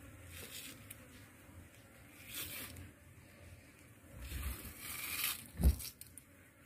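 A knife cutting and tearing through a tuna's head and gills, with wet ripping and squelching in several strokes. One sharp thump comes near the end and is the loudest sound.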